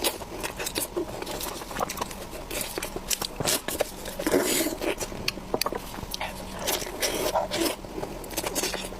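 Close-miked eating: a person chewing and biting food, with irregular wet mouth clicks and smacks.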